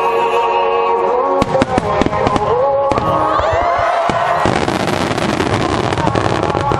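Fireworks bursting over music played on loudspeakers. A string of sharp bangs starts about a second and a half in, and the bangs give way to dense crackling about four and a half seconds in.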